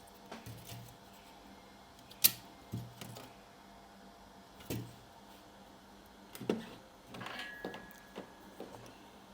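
Small hardware parts being handled and fitted onto a computer motherboard: a string of separate clicks and taps, the sharpest about two seconds in, with a short high tone a little after seven seconds.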